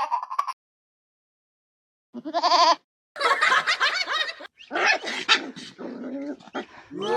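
Animal calls: a short cry with a wavering pitch about two seconds in, followed by a longer, rougher run of cries with short gaps.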